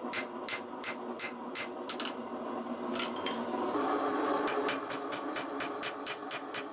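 Forging hammer striking red-hot 1084 carbon steel on an anvil, a steady series of ringing blows about three a second. The blows pause about two seconds in, then resume faster, over a steady hum.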